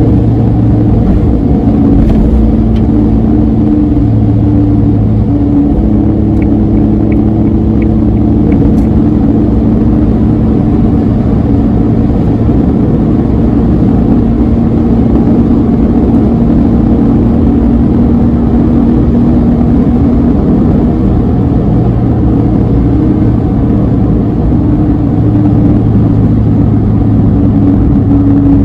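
Suzuki Alto Van (HA36V) small three-cylinder engine droning steadily while cruising at expressway speed, heard from inside the cabin over a loud rumble of tyre and road noise. The engine pitch shifts slightly a few times.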